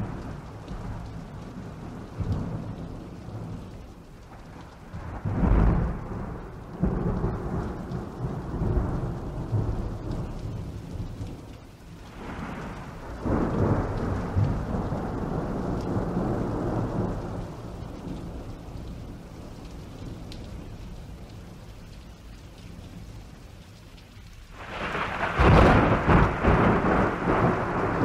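Steady rain with rolling thunder. The thunder swells several times, loudest near the end.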